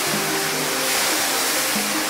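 Steady hiss of a pressure-washer jet spraying water onto a wet rug and tiles, rinsing off shampoo foam, under soft background music with long held notes.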